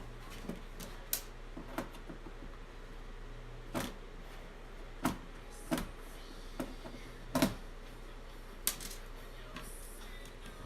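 Scattered short clicks and light knocks of a TV power supply circuit board and its cable connectors being handled, over a faint steady low hum.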